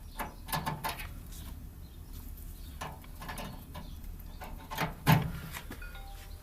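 A scatter of small clicks and knocks from a USB cable being handled and plugged in, the loudest about five seconds in.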